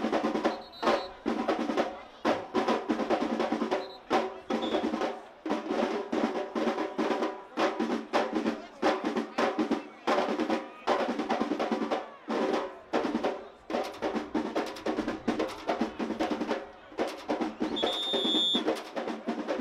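Samba school bateria playing a driving samba rhythm on massed surdo bass drums and snare drums (caixas). A few short high whistle blasts cut through, the clearest near the end.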